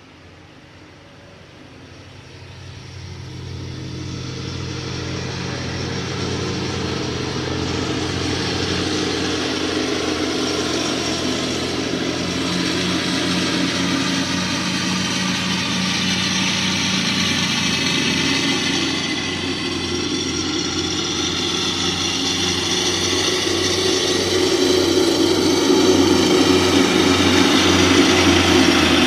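Lawnmower engine running steadily while mowing. It gets louder over the first few seconds and again near the end.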